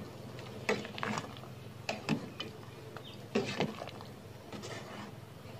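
A metal ladle stirring a pot of soupy curry, clinking and scraping against the metal pot in a series of short knocks, several of them in quick pairs.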